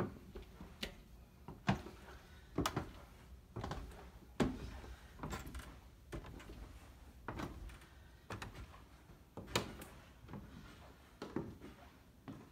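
Footsteps climbing bare wooden stairs, a knock about once a second.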